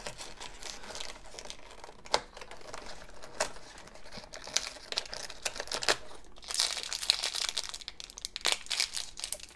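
Foil blind bag crinkling as it is pulled out of a cardboard toy package and torn open at the top, with small clicks and rustles. The crinkling thickens about six and a half seconds in.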